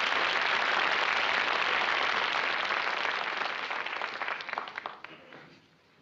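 Studio audience applauding, thinning to a few scattered claps about four seconds in and dying away shortly before the end.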